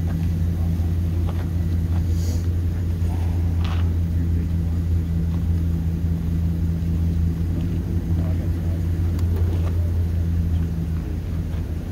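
Steady low hum and rumble of an engine running, with a few faint clicks over it.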